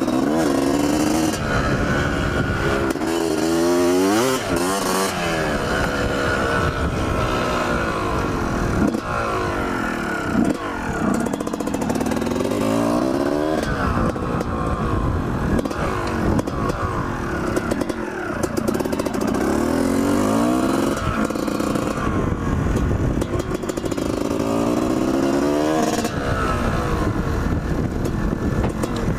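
Two-stroke dirt bike engine being ridden hard, revving up and down: the pitch climbs repeatedly under throttle and drops back at shifts or when backing off.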